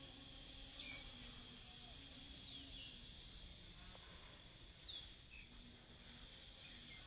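Sogon bird calling: short high notes and a couple of quick falling whistles, over a steady high insect drone.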